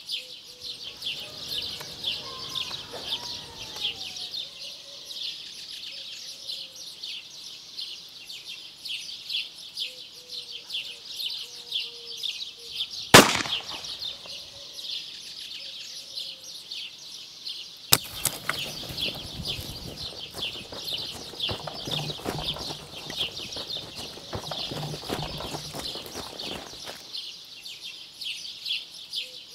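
Summer countryside ambience: a steady high chorus of cicadas with birds chirping. A single sharp crack sounds about thirteen seconds in, and later there is a stretch of leafy rustling as someone pushes through grapevines.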